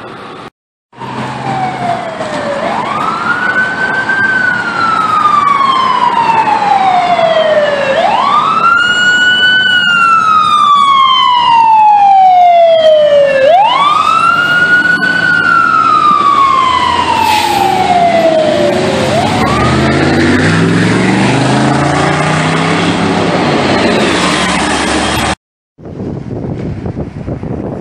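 Fire department emergency vehicle's siren on a slow wail: each cycle climbs quickly, then falls away slowly, four times over, with a rougher low sound building underneath in the last few seconds.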